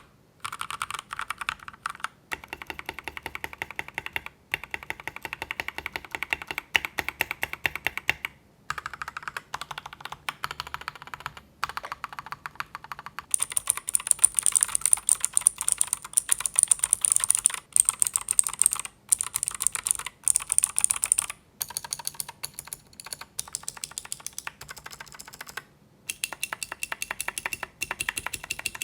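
Fast typing on AKKO 3098 mechanical keyboards fitted with TTC switches, a dense run of key clacks. It comes in several takes of a few seconds each, split by short breaks, each take with a different switch and its own pitch of click; a stretch in the middle sounds sharper and higher.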